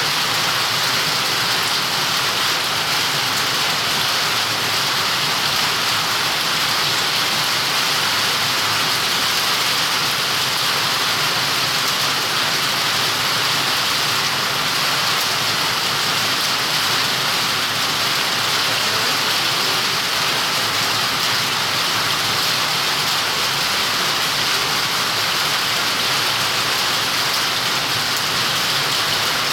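Heavy rain falling steadily, a dense even hiss of drops hitting the ground and surfaces.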